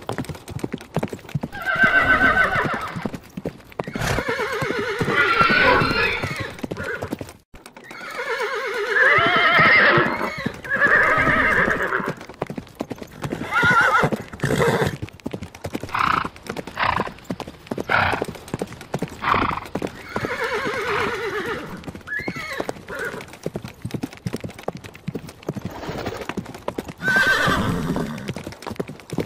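Horses neighing: several long, quavering whinnies, with hooves clopping between them. The sound drops out briefly about seven seconds in.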